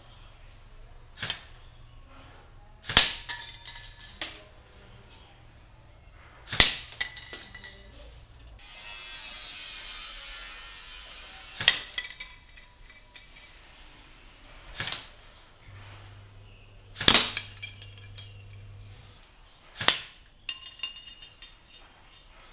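Single shots from a Dboy BY-805T SCAR-H electric airsoft rifle (AEG), eight sharp cracks a few seconds apart, each followed by a few faint ticks.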